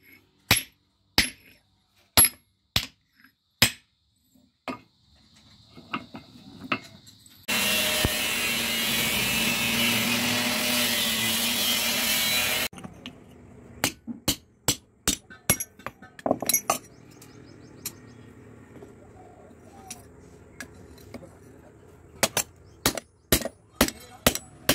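Blacksmith's hand hammer striking a steel axe head on an anvil in runs of separate sharp blows, about one to three a second. In the middle a steady machine noise runs for about five seconds and cuts off suddenly.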